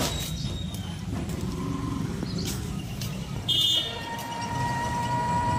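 Auto-rickshaw (tuk-tuk) engine running with a steady low rumble, with a short high horn beep about three and a half seconds in.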